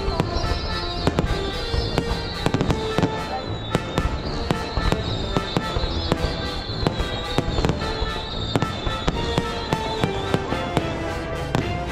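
Fireworks going off in a rapid, irregular string of bangs and crackles, with music playing underneath.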